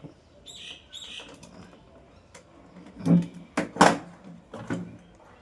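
Pliers working the screws of a ceiling fan's metal housing: two short squeaks about half a second and a second in, then sharp metal knocks and clanks about three and four seconds in.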